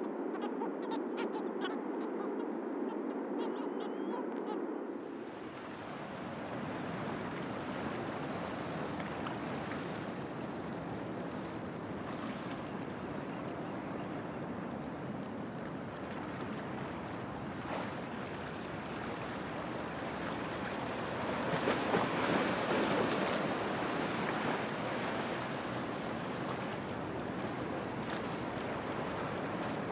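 Steady wind and water noise over open sea water, rising in a louder gust about three quarters of the way through. For the first five seconds a different, muffled sound with faint clicks is heard, which cuts off abruptly.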